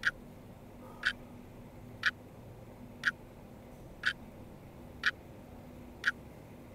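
Sharp ticks evenly spaced about once a second, clock-like, over a faint steady hum.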